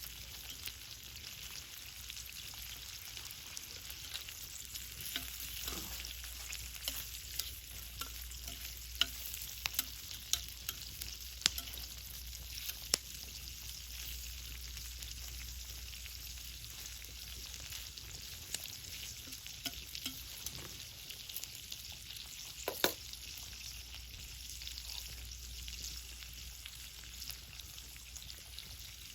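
Cooking over a wood and charcoal fire: a steady sizzling hiss with scattered sharp crackles and pops, several louder pops around the middle and one near the end.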